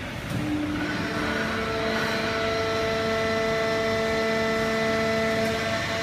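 100-ton hydraulic cardboard baler running, a steady machine hum overlaid by a whine of several held tones that settles in about a second in.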